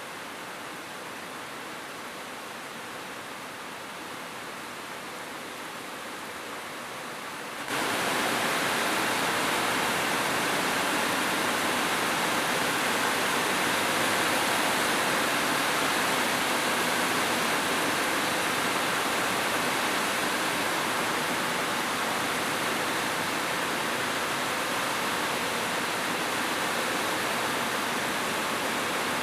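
Steady rain falling on a roof, an even hiss of many drops. About eight seconds in it abruptly becomes louder and brighter, then holds steady.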